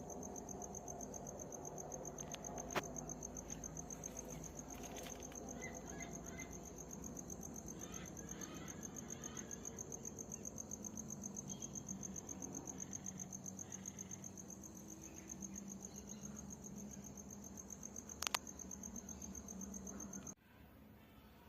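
Steady high-pitched trilling of an insect chorus, crickets, with faint bird chirps now and then and two sharp clicks, about three seconds in and near the end. The chorus cuts off suddenly about twenty seconds in.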